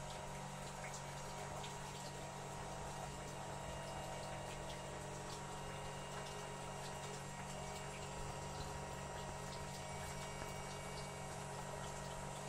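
Sprayed water running off a shed roof back into a bucket, a steady trickle. A constant hum runs beneath it.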